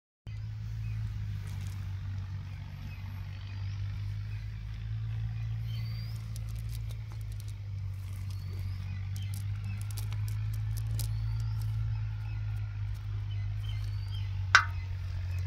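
A steady low engine drone, with faint short chirps above it and small clicks and rustles as the net is handled. A brief sharp sound about a second before the end is the loudest moment.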